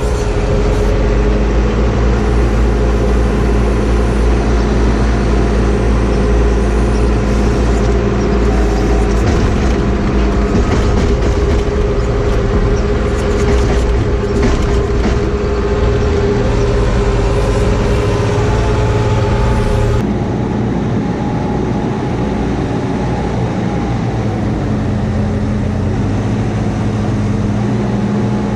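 Diesel farm machinery running steadily: a telehandler's engine heard from inside its cab, with a constant humming whine over a deep rumble. About two-thirds of the way through, the sound switches abruptly to a lighter engine noise heard out in the open yard.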